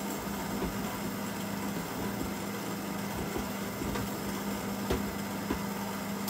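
Stand mixer's motor running steadily on its slowest speed, mixing cake batter in a metal bowl, with a constant low hum. It is switched off right at the end.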